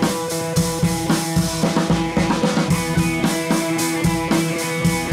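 Background music with a drum kit keeping a steady beat under sustained instrument notes.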